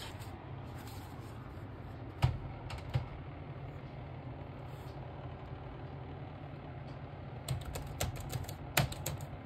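Laptop cooling pad's fans running with a steady low hum. A laptop is set down on the pad with two knocks, the first loud, about two and three seconds in, then a quick burst of typing on the HP laptop's keyboard near the end.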